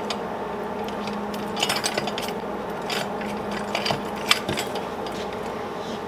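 Metal clicks, clinks and scraping from the adjustable leg of a homemade gate jack being worked up and down, a handful of sharp clinks spread over a few seconds, over a steady low hum.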